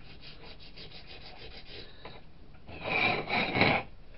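Sandpaper rubbed by hand back and forth over a casting in quick, even strokes, about six a second, then a louder, rougher stretch of scrubbing about three seconds in.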